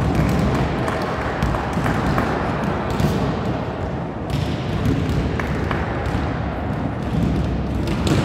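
Echoing indoor sports-hall ambience: a steady wash of indistinct noise and voices, with a few sharp thuds of a volleyball being struck or bounced.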